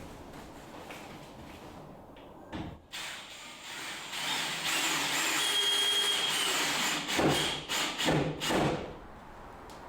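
A machine runs with a steady whirring noise for about five seconds, with several knocks near the end.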